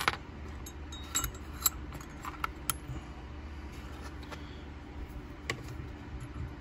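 Small steel parts of a Buck Spitfire folding knife (liner, spacer and pins) clicking and clinking against each other as they are handled and fitted by hand: scattered light clicks, most in the first three seconds, over a steady low hum.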